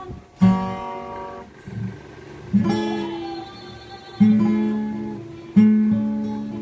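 Cutaway acoustic guitar played slowly: four chords, each struck once and left to ring and fade, spaced about a second and a half to two seconds apart.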